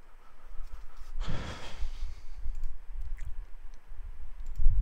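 A man sighs or breathes out close to the microphone about a second in, over a steady low hum, followed by a few faint clicks.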